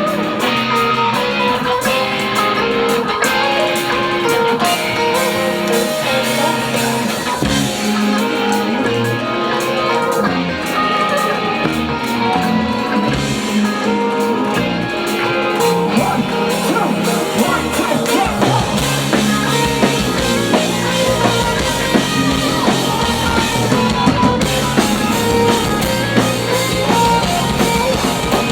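Live rock band playing: guitar and drum kit. The low end grows heavier about eighteen seconds in.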